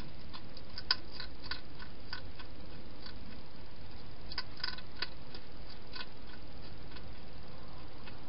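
Wild European hedgehog at its food and water bowls, making quick, irregular little clicks while it eats and drinks. They come in two runs, about a second in and again past four seconds, over a steady hiss.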